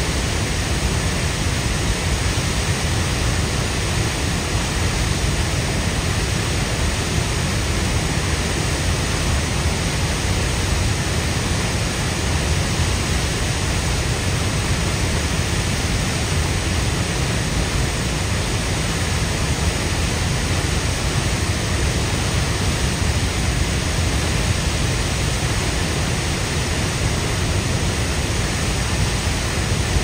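Upper Falls of the Yellowstone River: a loud, steady, unbroken rush of falling and churning water, with a deep low rumble under the hiss.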